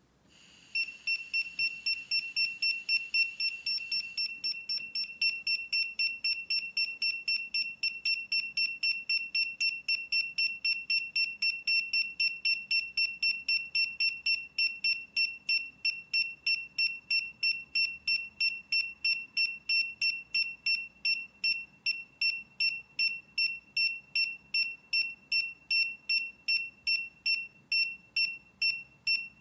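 Kiprim GD01 handheld gas leak detector's alarm beeping, a high-pitched beep repeating quickly and evenly at about three a second, starting about a second in.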